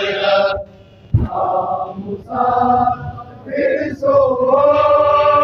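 Crowd of men chanting together in a Muharram mourning (matam) chant, in phrases with short breaks between them. There is one dull thump about a second in.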